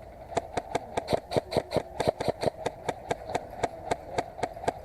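Airsoft gun firing a rapid run of single shots, about five or six sharp cracks a second for around four seconds, over a steady hum.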